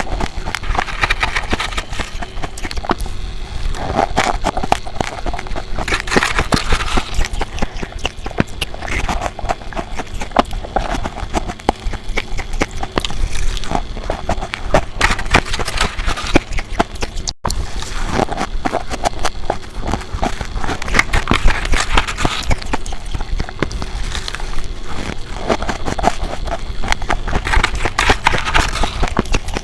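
Ice being bitten and chewed close to the microphone: dense crunching and crackling, swelling into a louder burst of crunches about every two to three seconds.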